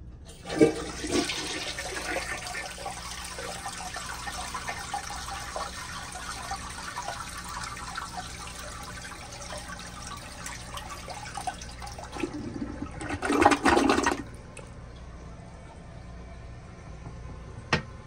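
1978 VHP toilet flushing. A sharp knock of the trip lever comes about half a second in, then the steady rush of water swirling down the bowl. About twelve seconds in it ends in a loud gurgle as the siphon breaks, which cuts off suddenly near fourteen seconds. A single knock near the end as the lid is lowered.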